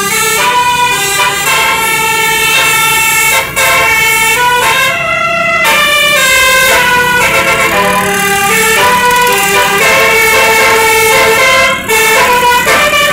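Bus 'telolet Basuri' musical air horn playing a fast melody, loud, its notes switching pitch every fraction of a second, with two short breaks, about three and a half seconds in and near the end.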